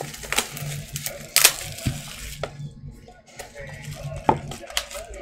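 A plastic trading-card pack wrapper crinkling and crackling as it is torn open and the cards are pulled out, in a string of sharp crackles, the loudest about a second and a half in.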